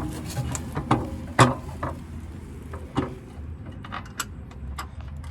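Scattered metal clicks and knocks from a running board's mounting bracket being fitted against a pickup's frame and its bolts started, with one sharp knock about a second and a half in and lighter irregular clicking near the end.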